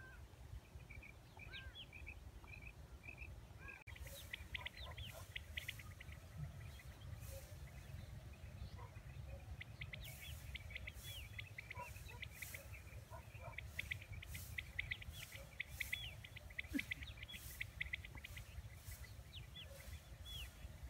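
Birds chirping and calling, many short quick calls overlapping into a dense chorus that thickens about four seconds in, over a steady low rumble.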